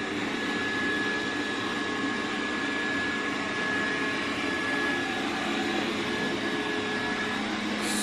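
Xiaomi S10+ robot vacuum running as it cleans a laminate floor: a steady motor and suction-fan hum with a thin, steady high whine.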